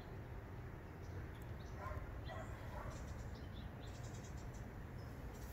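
Quiet outdoor background: a steady low rumble, with a few faint, short distant sounds about two to three seconds in.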